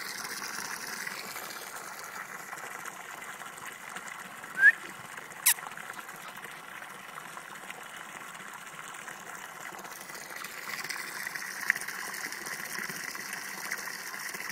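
Water from a garden hose splashing steadily into a plastic paddling pool. A short high squeak and a sharp click come about five seconds in.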